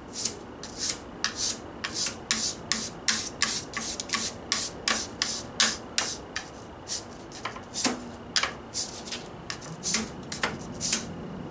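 Stanley Bailey No. 7 plane iron scraped back and forth on wet/dry sandpaper in quick, even strokes, nearly three a second, honing the burr off its cutting edge. The strokes stop shortly before the end.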